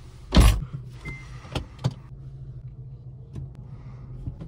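Honda Civic Rebirth's R18 four-cylinder engine idling steadily on an aftermarket rear exhaust, heard from inside the cabin. A heavy thump comes about half a second in, and a few light clicks follow.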